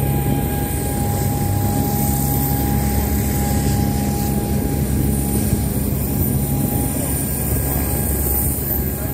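Aircraft engine running steadily: a constant loud drone with a steady high whine.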